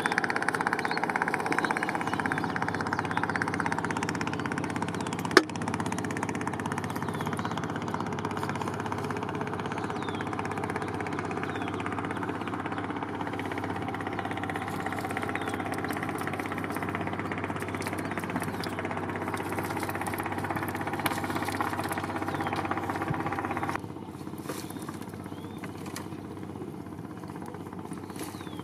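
A boat engine running steadily. About five seconds in there is a single sharp click. Near the end the engine sound cuts off suddenly, leaving a fainter low hum.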